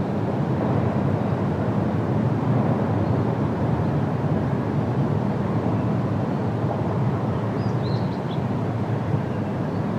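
Steady low outdoor rumble with no pitch to it, like wind or distant traffic, with a few short high chirps about three-quarters of the way through.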